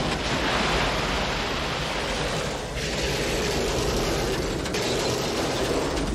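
Fire burning on an overturned car just after an explosion: a steady rushing hiss of flames.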